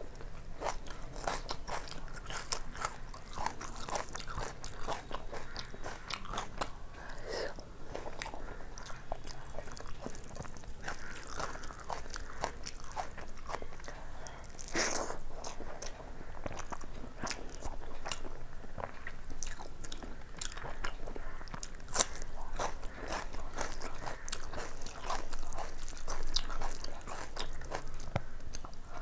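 Close-up eating sounds: a person chewing mouthfuls of fried rice and chicken curry eaten by hand, with a steady run of wet mouth clicks and small crunches. A few sharper crunches stand out about halfway through and again a few seconds later.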